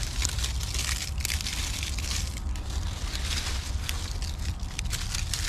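Dry leaves and twigs crackling and crunching as they are gathered up by hand, a dense run of small crackles over a steady low rumble.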